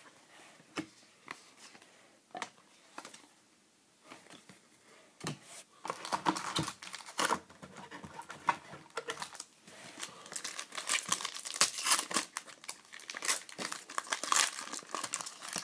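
A few light taps of trading cards being set down, then, from about five seconds in, continuous crinkling of a foil trading-card pack wrapper as it is handled and torn open.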